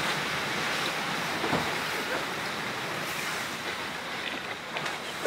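River ice breaking up and moving: floes and slabs grinding against each other and the ice piled on the bank, a steady rushing rumble with a few faint cracks.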